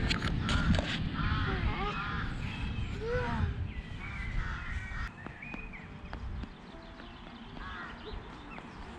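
Crows cawing on and off, most often in the first half, over a steady low rumble.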